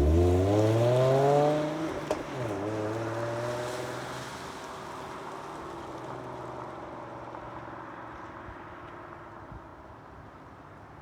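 Car engine accelerating: its pitch climbs, drops sharply at a gear change about two seconds in, climbs again, then holds steady while fading away as the car pulls off.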